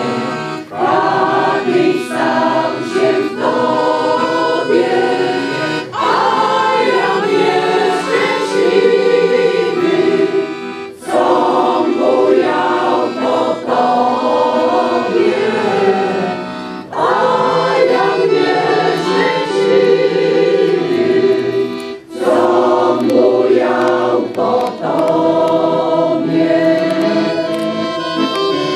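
A choir singing in phrases of about five seconds, each ending in a brief pause for breath.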